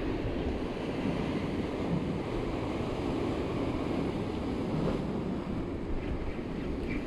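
Surf washing and breaking against concrete tetrapods, a steady rushing noise, mixed with wind buffeting the microphone.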